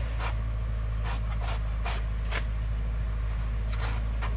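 Short scraping strokes of a hand tool working soil, roughly two a second with a pause about halfway, over a steady low rumble.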